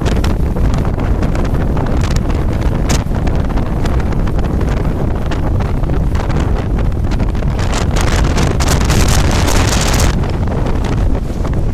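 Blizzard wind buffeting the microphone in a loud, constant low rumble. A stronger gust brings a harsher hiss for a couple of seconds about two-thirds of the way in, then drops off suddenly.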